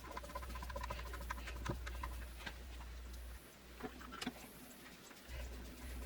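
Small clicks and taps of smart deadbolt parts being handled and fitted into the door, over a low rumble that drops out about halfway through and returns near the end.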